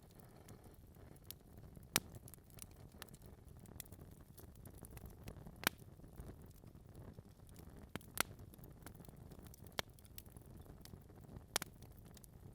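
Wood fire burning in a fireplace: a soft low rumble of flames with irregular sharp crackles and pops from the logs, a handful of them louder than the rest.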